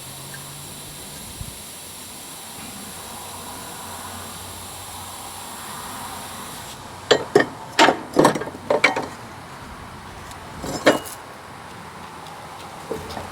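Sharp metal knocks and clanks of hand tools on a lawn mower deck's spindle assembly. They come in a quick run of about six strikes starting some seven seconds in, with a couple more near eleven seconds. Before the knocks there is a steady high hiss that cuts off suddenly.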